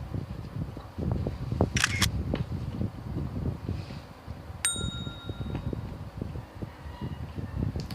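Close-up eating sounds: a person chewing and gnawing adobo chicken feet, with steady wet mouth clicks. A brief clatter about two seconds in, and a single ringing clink of tableware a little before five seconds in.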